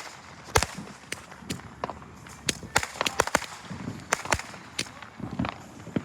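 Fireworks going off: about a dozen sharp bangs and cracks at uneven intervals, some close together in pairs.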